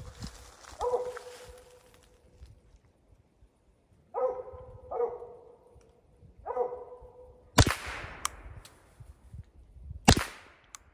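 Mountain Cur barking treed at a squirrel, four barks, followed by two sharp cracks about two and a half seconds apart, which are .22 rimfire rifle shots at the treed squirrel. The shots are the loudest sounds.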